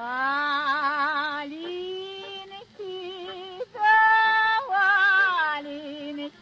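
Woman singing a Russian folk song with a wide vibrato. She slides up into a long held note at the start, then sings several more held notes with short breaks between them.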